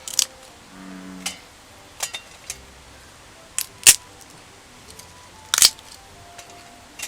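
A handful of sharp wooden knocks and snaps: kindling sticks being broken and laid for a campfire. The loudest comes about four seconds in, with another near the end.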